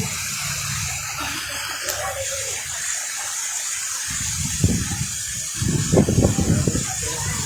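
Heavy rain pouring, a steady rushing hiss of water, with a few louder low rumbling bursts in the second half.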